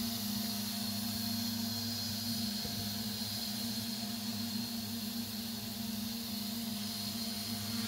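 Homebuilt quadcopter drone's motors and propellers humming steadily as it hovers and flies slowly, a low two-tone hum with a thin high whine above it.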